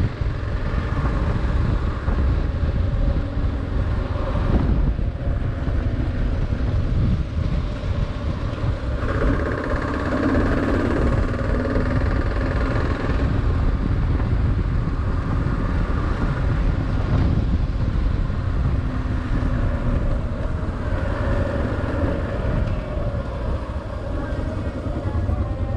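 Kawasaki KLR 650's single-cylinder engine running steadily on a ride, with heavy wind buffeting on the microphone.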